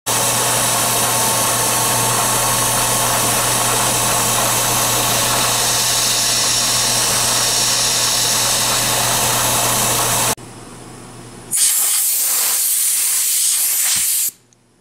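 CNC milling machine running a finishing pass with a half-inch ball end mill: steady loud noise over a low hum that cuts off suddenly about ten seconds in. After a brief quieter gap comes a second burst of loud noise lasting about three seconds.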